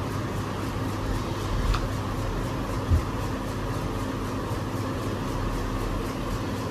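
Steady mechanical hum, with a light click about two seconds in and a low knock about a second later from handling a selfie-stick tripod with a phone clamped in it.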